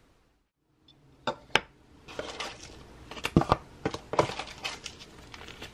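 Bead-making supplies, a plastic spool of fishing line and a bag of beads, being handled and set down on a hard tabletop: a series of sharp clicks and light knocks with plastic rustling between them, starting about a second in.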